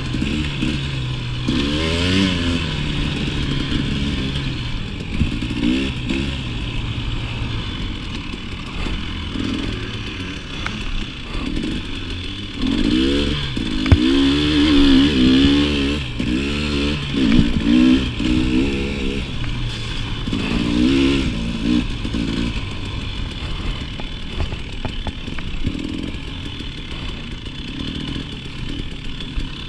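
KTM 300 two-stroke dirt bike engine under constant throttle changes, its revs rising and falling again and again as it is ridden over a trail, with a sharp knock about halfway through.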